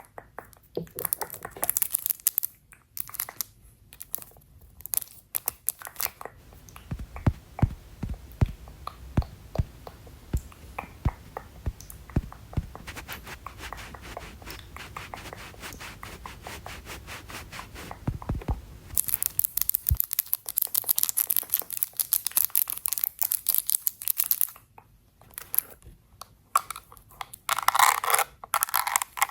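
Close-miked ASMR handling sounds of makeup items: crinkling and tearing at first, then a long run of sharp taps and clicks, then about five seconds of fast scratchy brushing strokes, with rustling again near the end.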